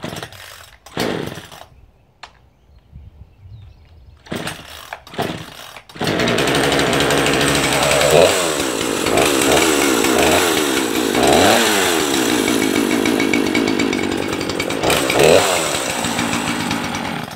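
20-inch Poulan two-stroke chainsaw being pull-started: a few pulls of the starter cord with short sputters, then about six seconds in the engine catches and runs, revved up and down several times before it stops near the end. This is the saw starting once the flooded engine has been dried out and left unprimed.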